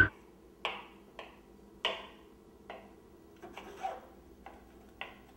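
Kitchen knives chopping vegetables on cutting boards: short, sharp, irregular knocks of the blade on the board, roughly one to two a second.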